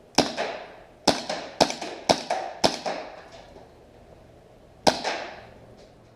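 Cybergun FNX-45 Tactical gas blowback airsoft pistol with a mock suppressor being fired six times: one sharp crack, then four in quick succession about half a second apart, then a last shot about two seconds later. Each crack is followed by a short ringing decay.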